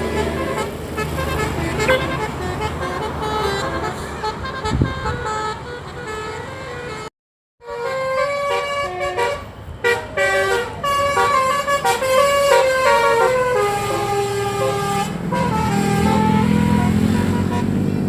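A 'telolet' multi-tone bus horn plays a quick melody of short stepping notes, over bus engine and traffic noise. The sound cuts out for a moment after about seven seconds. Near the end a low engine note rises in pitch.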